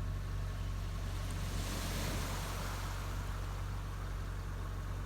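Steady low hum of an idling vehicle engine, with a rush of noise that swells and fades between about one and three seconds in.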